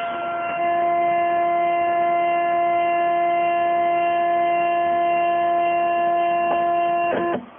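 Stepper motors of a home-built CNC mill whining at a steady pitch as the machine moves an axis along its ballscrew. The whine starts about half a second in, holds steady, and stops abruptly near the end after a brief change in pitch.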